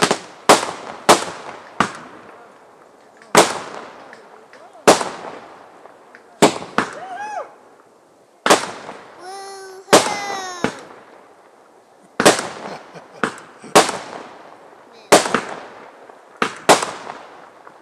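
Fireworks shells bursting one after another at irregular intervals, about eighteen sharp bangs, each with an echoing tail. A warbling whistle sounds briefly about nine seconds in.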